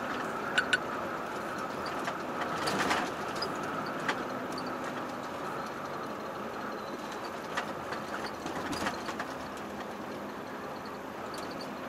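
Volvo FH truck driving on the road, heard from inside the cab as a steady engine and road drone. A few light clicks and knocks come over it, two close together near the start and another about three seconds in.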